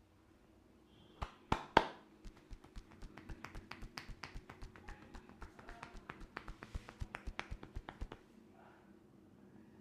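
Hands tapping rhythmically on a head in an Indian head massage: three loud slaps a little over a second in, then a quick even run of lighter taps, about five a second, that stops well before the end.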